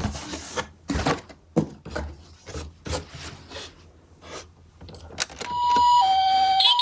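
A series of sharp clicks and knocks, toy minicars being handled, then, about five and a half seconds in, an electronic two-tone ambulance siren starts, alternating between a higher and a lower tone in the Japanese hi-lo pattern.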